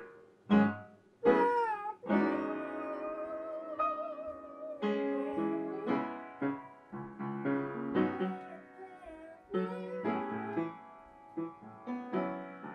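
Piano playing chords, with a voice singing a wavering held note over it for a couple of seconds.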